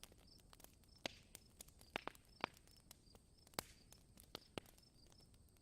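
Campfire crackling: faint, irregular sharp pops and snaps of burning wood, about a dozen in a few seconds.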